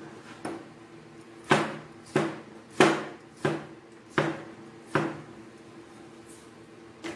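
Cleaver chopping a cucumber on a plastic cutting board: six sharp knocks, about one every two-thirds of a second, starting about a second and a half in.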